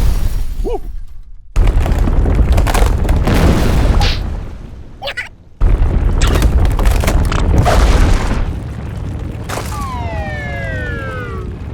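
Cartoon sound effects: loud, deep rumbling booms in long bursts that cut off abruptly twice, then a falling pitched whine near the end.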